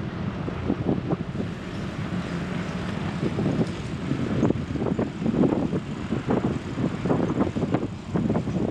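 Wind buffeting the microphone of a camera on a moving bicycle, an uneven low rumble over the steady hum of street traffic.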